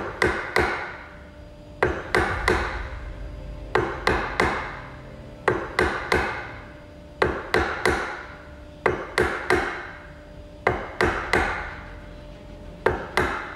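Wood chisel being struck into timber in groups of three quick blows about every two seconds, each blow ringing briefly. The chisel is chopping a series of angled cuts across a hinge recess to break up the waste before it is pared out.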